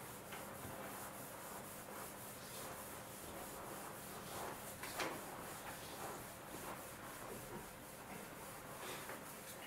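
Faint rubbing and scraping noise, with a sharper click about five seconds in.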